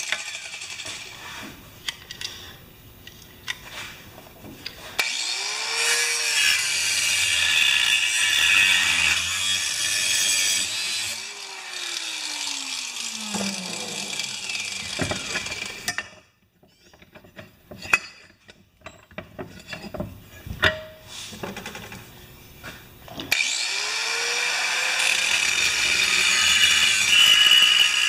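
Angle grinder with a cut-off wheel cutting through a metal bar clamped in a vise: a loud, high grinding screech in two long spells, one from about five seconds in and one starting near the end. In each, the motor's whine rises as it spins up and falls as it winds down, with quieter stretches and a few knocks in between.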